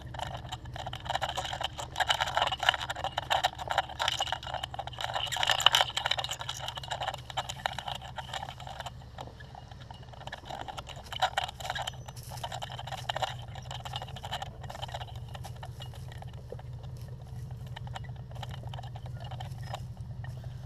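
CFMoto ZForce 800 side-by-side's 800cc V-twin running at low revs as it crawls down a rocky dirt slope, with the tyres crunching and scraping over stones and loose soil. The crunching is heaviest in the first several seconds and again about eleven seconds in.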